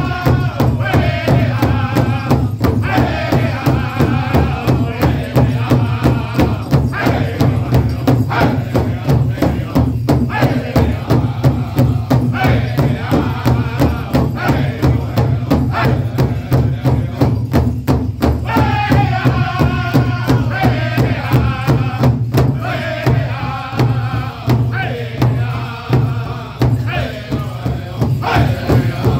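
Powwow drum group: several singers chanting together over steady unison beats of sticks on a large shared drum, a crow hop song.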